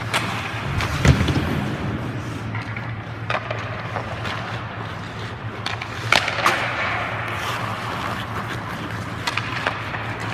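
Hockey skates scraping and carving on the ice during a shooting drill, with several sharp cracks and thuds of sticks striking pucks and pucks hitting the boards, the loudest about a second in, over a steady low hum.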